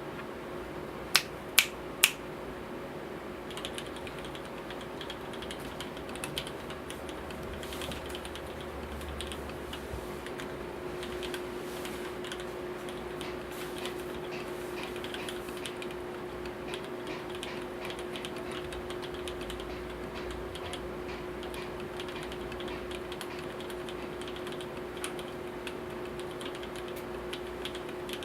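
Continuous typing on a custom 65% mechanical keyboard with lubed FEI v2 switches, lubed GMK stabilizers and GMK keycaps: a steady stream of keystrokes. Three sharp, louder clicks come in quick succession a little over a second in, before the typing begins.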